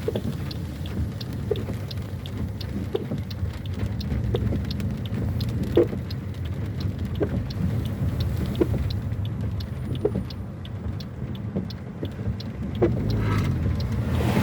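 Car driving along, a steady low rumble of engine and road noise with scattered light ticks and taps; a rush of broader noise builds near the end.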